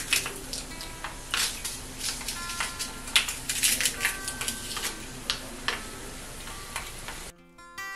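Dried red chillies with mustard and cumin seeds crackling and popping in hot tempering oil just off the heat, with the occasional clink of a spoon on the pan. Near the end the sound cuts to quiet background music.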